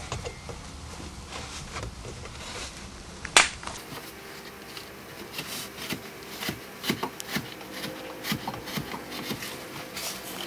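Sheet-metal access-door frame being handled and fitted into a duct-board opening, its tabs bent over by hand: scattered light clicks and taps, with one sharp, much louder click about a third of the way in and quicker clicking after it.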